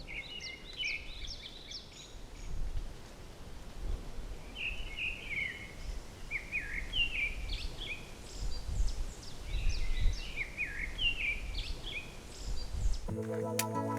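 Birds chirping in several clusters of quick, rising and falling calls over a gusty low rumble of outdoor noise. Guitar music comes in about a second before the end.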